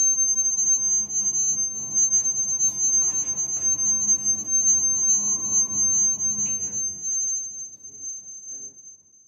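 A steady high-pitched electronic whine over a low hum of room and machine noise. The hum drops away about seven seconds in, leaving the whine, and everything fades out at the end.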